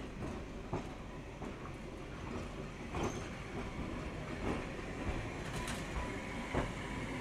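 Vintage electric tramcar running along its track, its wheels giving irregular sharp knocks over rail joints against a steady running rumble. A faint high steady tone joins about five seconds in.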